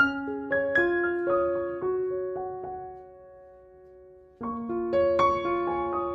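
Background piano music: single notes and soft chords that ring and die away, fading out for a moment past the middle, then starting again suddenly with a new phrase.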